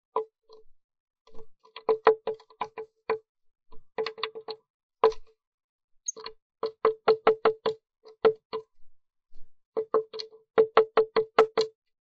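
Blue tit pecking at the wooden rim of the nest box's entrance hole from inside: runs of sharp knocks, several a second, broken by short pauses, each knock with a short ring.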